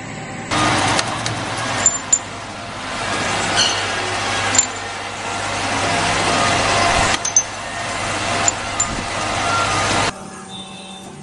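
Thread-rolling machine running as a steel rod is pressed between its grooved dies: a harsh, even mechanical din over a low hum, with a few sharp metallic clicks. The din starts abruptly about half a second in and drops away sharply near the end.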